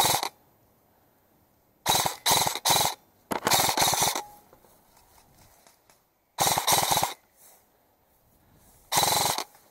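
Airsoft gun firing about seven short bursts of rapid shots, each under a second long, with near silence between them: suppressing fire.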